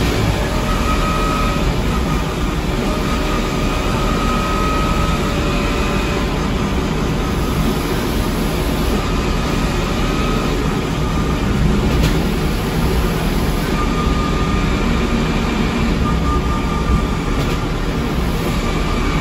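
Scania K230UB bus drivetrain heard through an open floor hatch: the ZF Ecomat IV 6HP504C automatic gearbox and 9.3-litre Scania DC09 engine running under way. The engine's low, steady noise is overlaid by a faint gear whine that fades in and out several times.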